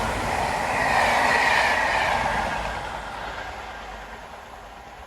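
A Network Rail train running past and moving away, its noise fading steadily over the last few seconds.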